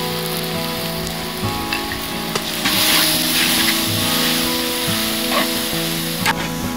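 Greens, baby octopus and noodles sizzling in a large wok as sauce is poured in and a metal spatula stirs them. The sizzle swells louder about two and a half seconds in, with a few scrapes of the spatula against the pan.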